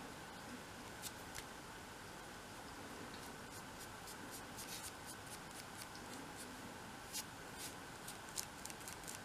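Faint brushing and light scratching of a small flat paintbrush laying white paint onto tiny wooden window frames, with soft clicks of the brush against the strips that come more often near the end.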